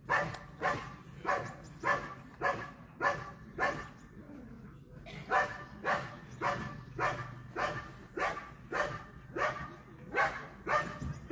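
Dog barking in a steady rhythm, about two barks a second, with a pause of about a second and a half a little before the middle before the barking resumes.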